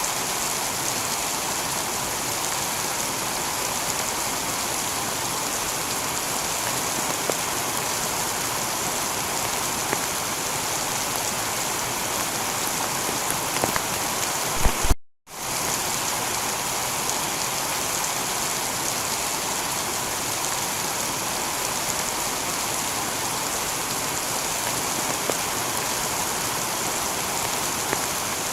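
Steady heavy rain falling on a tiled roof, with scattered individual drops. About halfway through there are a few louder taps, then the sound cuts out for a fraction of a second and comes straight back.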